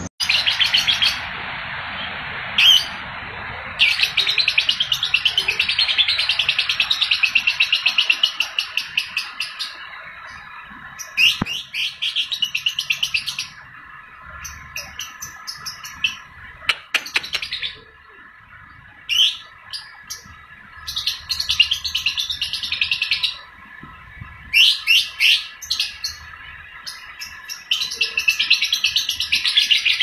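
Young lovebird singing gacor in its long, rapid chattering 'ngekek' trill, the longest run lasting several seconds. Shorter trills and single sharp chirps come between the runs.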